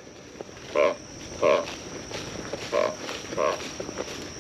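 A frog croaking repeatedly: short calls, about one a second.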